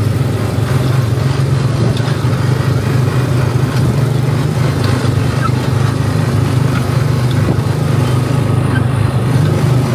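Small gasoline engine of a Tomorrowland Speedway go-kart style car running steadily while the car is driven along the track, heard from on board.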